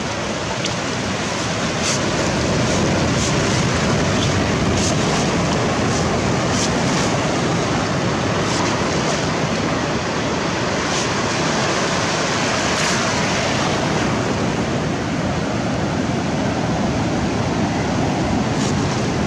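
Ocean surf washing steadily over a shallow sandy beach, with a few faint sharp ticks scattered through it.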